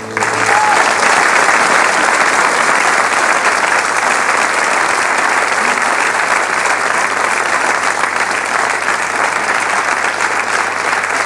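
Large studio audience applauding. It breaks out suddenly as a held organ chord stops, then goes on at a steady level.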